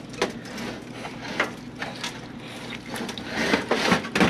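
Irregular clicks, knocks and rattles of handling at a kitchen oven, with a louder clatter near the end.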